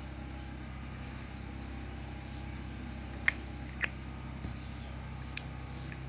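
Three light, sharp clicks from a small gold-capped bottle being handled, two close together a little past the middle and one near the end, over a steady low hum.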